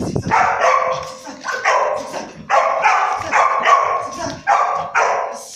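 Shepherd puppies barking excitedly, about ten short barks in quick runs of two or three.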